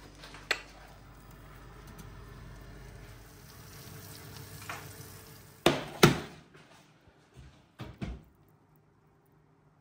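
Chicken breasts frying in oil in a pan with a faint, steady sizzle. Two loud knocks come about six seconds in and a few lighter ones follow, after which the sizzling stops.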